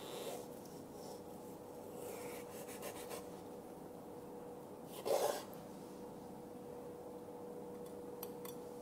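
Faint scraping and rubbing of a kitchen knife slicing under the rib bones of a raw blue runner fillet on a wooden cutting board, over a faint steady hum, with one brief louder noise about five seconds in.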